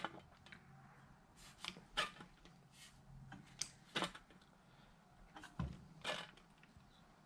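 Eastwood tabletop sheet-metal shrinker worked by hand in small increments on a steel patch panel: about nine short, irregularly spaced clicks and clunks of the jaws and the sheet being moved. The strokes are shrinking the panel's edge so that it curves to the fender's contour.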